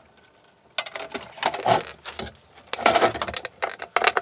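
Handling noise on a plastic ABS electrical enclosure: after a brief hush, a quick run of clicks, knocks and rattles as its lid is shut and cables are moved against it.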